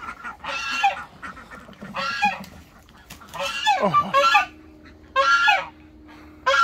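Domestic geese honking: a run of loud, nasal honks a second or two apart, with two calls overlapping near the middle.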